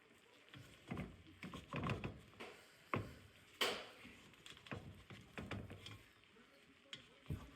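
A spoon scraping and knocking irregularly against a pot while mixing vegetables through cooked jollof rice, the sharpest knock a little past the middle.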